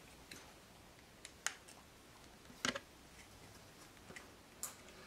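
Faint, scattered clicks and small cracks as a utility knife blade is pushed into a dry stick, shaving up petals one at a time; the sharpest click comes about halfway through.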